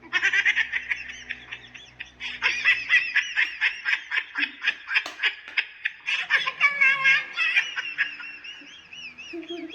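A high-pitched, laugh-like funny sound effect: rapid squeaky pulses several times a second, with a brief lull about two-thirds of the way through.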